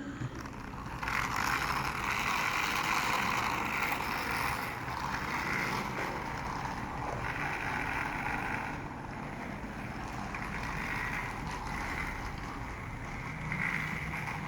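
Toy train locomotive running along its track, its small electric motor and wheels making a steady whir that swells and fades as it goes. It is a test run of a change meant to cure its wheel slip, which seems to help.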